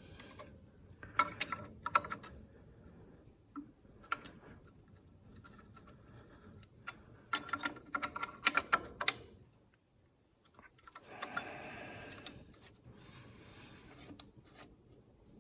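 Wrench clicking and clinking on the exhaust manifold nuts as they are snugged down, in two short runs of rapid clicks, the second one longer, followed by a brief scraping rustle.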